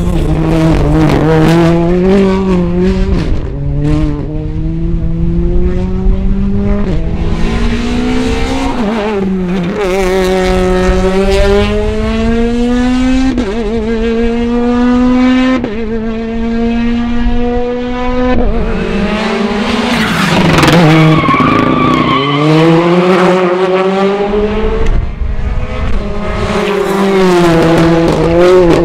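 Rally car engines at full throttle, pitch climbing hard and dropping sharply at quick upshifts. Cars rev up through the gears and sweep past one after another, over a constant low rumble of wind on the microphone.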